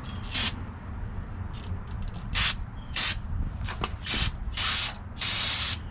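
Aerosol spray can hissing in a series of short bursts, the last ones longer, as grime-covered drum brake parts are sprayed with cleaner.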